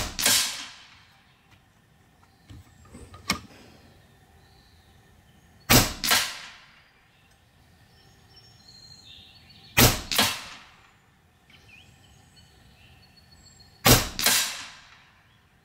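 A .22 Hatsan Factor RC Sniper Long PCP air rifle firing four shots about four seconds apart. Each sharp crack is followed within half a second by a second, trailing crack. A quieter click comes between the first two shots.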